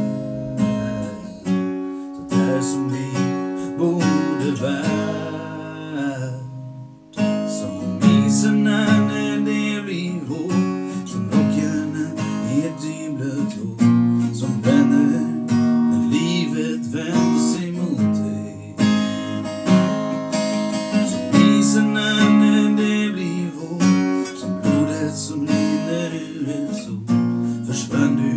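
Steel-string acoustic guitar played with a capo, strumming and picking chords in a steady rhythm, with a short break about seven seconds in before a loud strum starts it up again.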